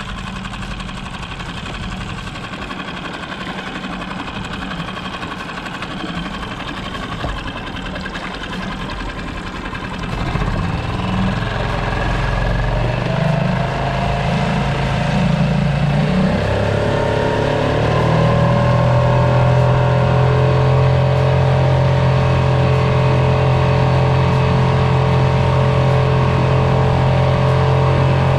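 Outboard motor on a small skiff running slowly, then opened up about ten seconds in. Its pitch rises over a couple of seconds and it settles at a steady, higher running speed.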